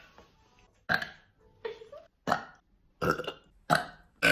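A girl burping repeatedly: about five short belches in quick succession, each starting abruptly and dying away fast.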